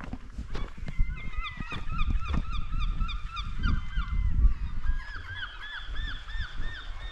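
Gulls calling over the sea cliffs: runs of short repeated calls, about three a second, with several birds overlapping. The calls start about a second in, and a second run comes near the end, over a low rumble.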